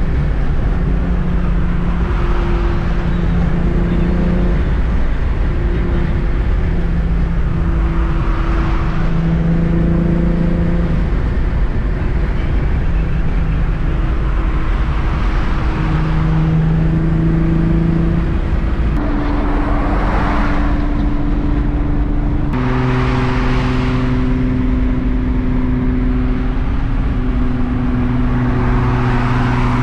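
Inside a car cruising at motorway speed: steady engine drone under road and wind noise, with the whoosh of other cars passing several times.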